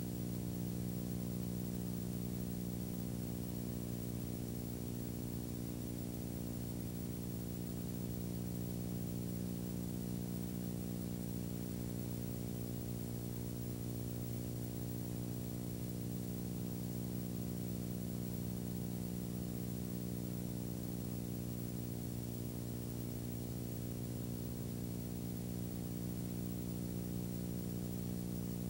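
Steady low electrical hum with a faint hiss behind it, unchanging, with no other sound: the noise floor of a silent home-movie transfer.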